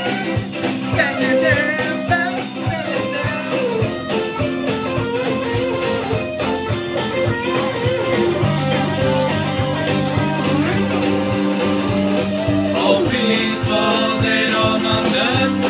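Several voices singing into a microphone over guitar-led rock music with a steady beat.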